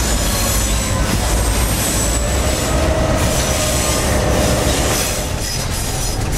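Inside the cab of a moving EMD GP-series (Geep) diesel locomotive: the diesel engine and the wheels on the rails make a steady rumble. High-pitched squealing from the wheel flanges on a curve rides over it.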